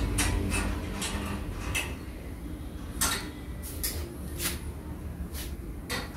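Scattered light metallic clicks and knocks, about a dozen, irregularly spaced, as the metal parts of a treadle sewing machine stand (flywheel, pitman rod and small hardware) are handled and fitted, over a low rumble.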